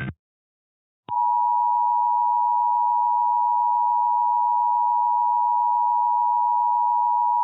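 Emergency Alert System attention signal: a single steady electronic tone that starts about a second in and holds at one pitch and level without a break.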